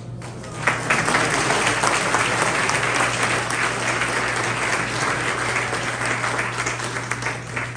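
Congregation applauding, swelling about half a second in and tapering off near the end.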